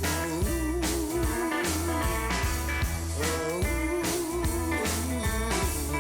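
Live blues band music: electric guitar over a repeating bass riff, with a singer's drawn-out "Ooh" about a second in.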